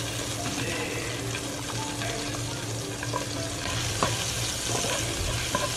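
Chopped garlic sizzling in melted butter in a non-stick frying pan, a steady hiss. A spatula scrapes and taps the pan a few times in the second half.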